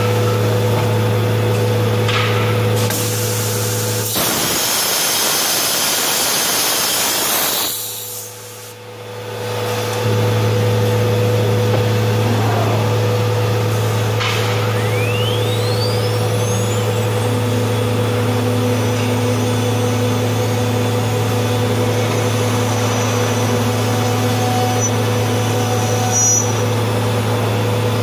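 CNC router machinery running with a steady low hum and a constant mid-pitched tone. A loud hiss comes in about four seconds in and lasts some four seconds, then the sound dips briefly. Around the middle a whine rises quickly in pitch.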